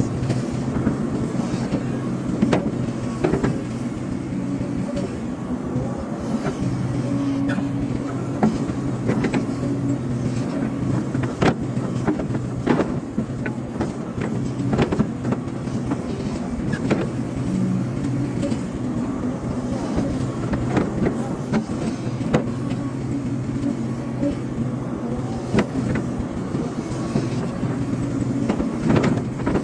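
Hydraulic excavator's diesel engine running steadily at working speed while earth is moved, with scattered sharp knocks and clunks from the bucket and soil throughout.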